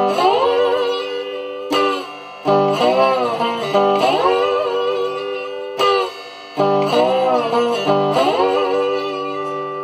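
Electric guitar in open G tuning played with a slide: a repeating blues riff of gliding notes, the phrase coming round about every four seconds with brief breaks between.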